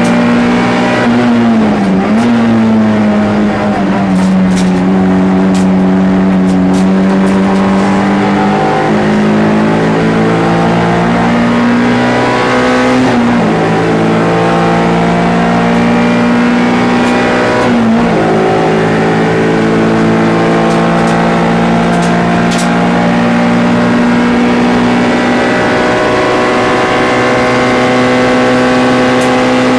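MG ZR 105 race car's 1.4-litre four-cylinder engine running hard at high revs. Its pitch climbs slowly and drops sharply at gear changes, about two, thirteen and eighteen seconds in.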